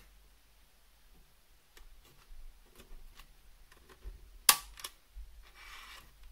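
Hands handling watercolor paint tubes and small plastic pans: scattered small clicks and taps, one sharp click about two-thirds of the way through, and a brief rustle near the end.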